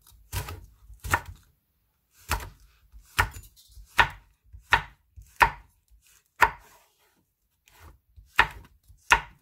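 Chef's knife slicing a red chili pepper on a wooden cutting board: about ten separate chops, a little under a second apart, with two brief pauses.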